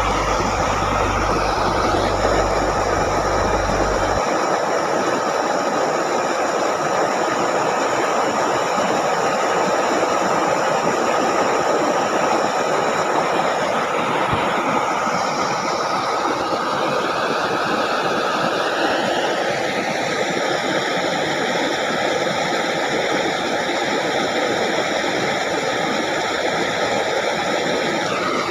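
Steady rush of water pouring from an outflow into a shallow ditch.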